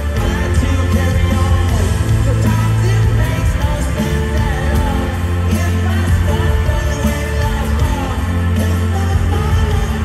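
Live rock band playing loud: electric guitars, bass and drums, with a male lead vocal, heard from within the audience.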